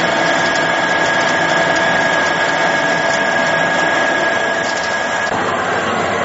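Verkon PAB-350 vertical two-spindle machine running: steady machine noise with a high whine that cuts out about five seconds in.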